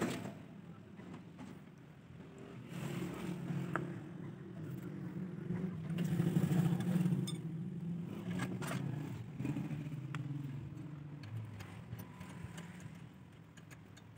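A motor vehicle engine running, growing louder toward the middle and then fading away, with a few sharp metallic clicks from hand tools.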